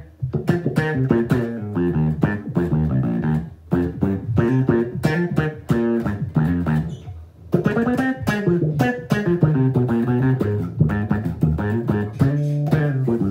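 Electric bass played through a Source Audio Bass Envelope Filter with fuzz: a quick run of plucked notes, each with an envelope-filter wah sweep. The playing breaks off briefly about four and seven seconds in.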